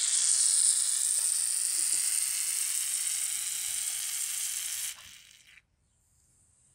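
Aerosol cans of shaving foam spraying, a steady hiss that cuts off about five seconds in.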